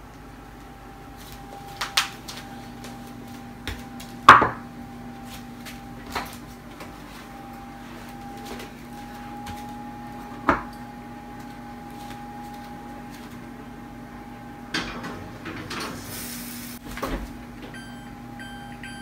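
A Bosch wall oven being loaded: a series of clunks and knocks from its door and wire rack as a dish goes in, the loudest about four seconds in, over a steady hum. Near the end a few short beeps come from the oven's touch control panel.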